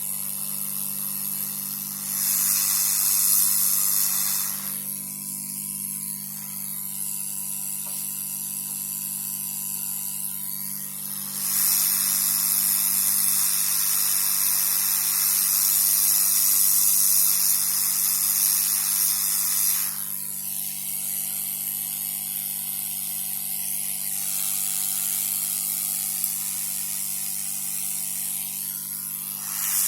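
Hot air rework station blowing air over the motherboard while MOSFETs are fitted: a steady hiss over a low hum, swelling louder three times.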